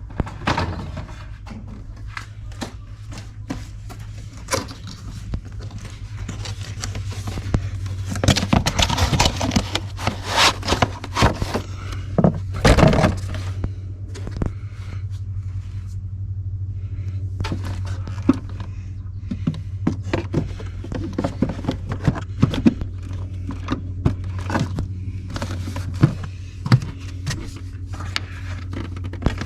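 Irregular plastic clicks, knocks and scraping as an air filter housing is handled and a new air filter fitted, busiest about a third of the way in, over a steady low hum.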